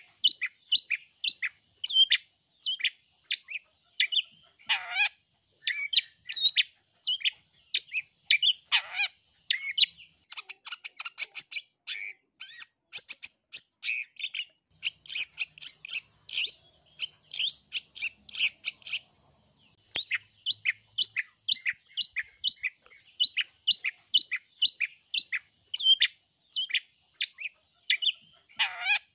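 Long-tailed shrike (cendet) calling nonstop in a rapid string of short, sharp falling notes, about three a second. A few harsh, rasping calls break the string, and a faster, higher, more varied run of notes comes in the middle. A faint steady high hiss lies underneath.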